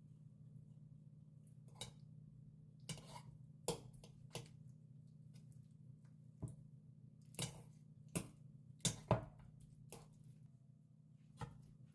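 Kitchen utensils and dishes being handled during food preparation: about a dozen separate light clicks and knocks at irregular intervals, over a faint steady low hum.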